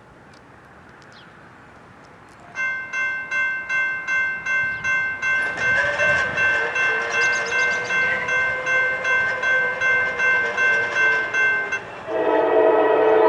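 Grade crossing warning bell starts about two and a half seconds in, dinging steadily about twice a second, with a long horn note sounding faintly underneath. Near the end the bell stops and the approaching Norfolk Southern GE AC44C6M locomotive's horn blasts loudly.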